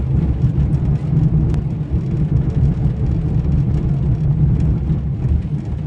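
Cabin noise inside a moving 1977 Honda Civic CVCC: a steady low rumble from its four-cylinder engine and tyres while driving.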